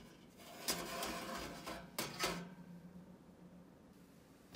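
Metal baking tray gripped with pliers and slid out of a toaster oven: metal scraping on the oven's wire rack, with two sharp clanks about two seconds in.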